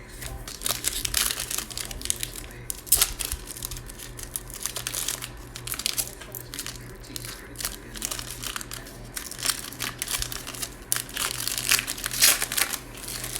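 Foil trading card pack wrapper crinkling as it is torn open and handled, a long run of irregular crackles, loudest near the end.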